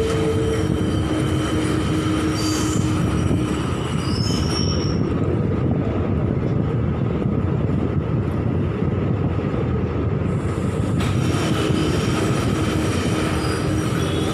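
Passenger train coach running along a station platform, heard from the coach door: a steady rumble of steel wheels on the rails. Thin wheel squeals come and go in the first few seconds and again near the end.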